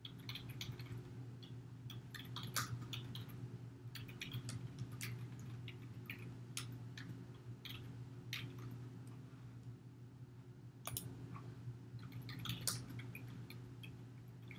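Typing on a computer keyboard: irregular, soft keystrokes, some in quick runs, over a steady low hum.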